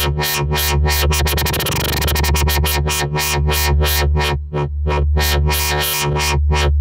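Sub wobble bass synth preset playing a held low note, its tone pulsing rhythmically in the typical dubstep wobble. The pulses speed up about two seconds in, then slow again, and the sound cuts off at the end.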